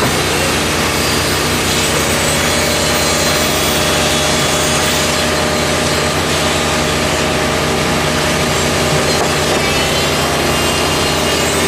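Engine-driven construction machine running steadily, with a harsh, continuous scraping noise over the engine.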